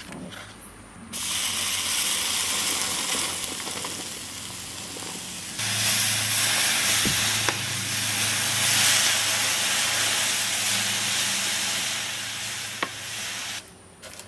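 Molten lead sizzling and hissing in a sand mould as moisture in the sand flashes to steam. A low hum joins partway through, and the hiss cuts off suddenly near the end.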